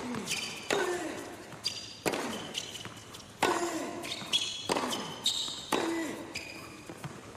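Tennis rally on an indoor hard court: a racket strikes the ball and the ball bounces on the court, sharp hits every half second to a second. Short high shoe squeaks and a grunt after some of the strokes.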